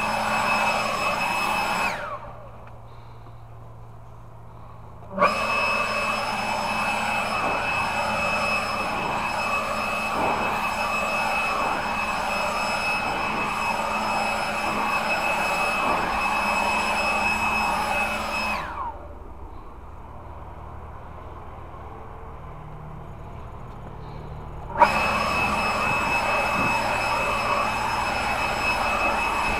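An electric power tool's motor running with a steady high whine and a rush of air. It is switched off twice, each time winding down with a falling whine, and started again a few seconds later with a click.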